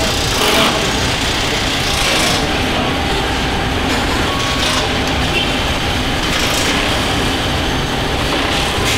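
Car assembly-line factory floor din: a steady low machinery rumble and hum, with short hissing bursts every second or two.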